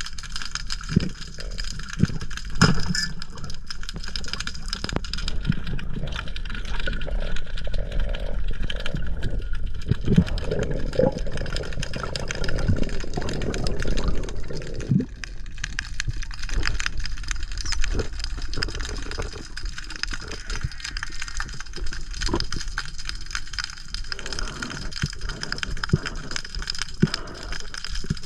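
Underwater sound heard through an action camera's waterproof housing: a steady low rumble of moving water with many scattered small clicks and knocks. A louder rushing stretch comes about ten to fifteen seconds in, as the camera moves fast through the water.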